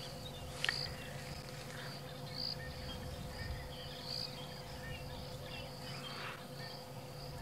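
Insects buzzing steadily in the surrounding bush, swelling and fading in patches, over a low steady hum. Faint leafy rustles come now and then as the elephant works his trunk in the bush.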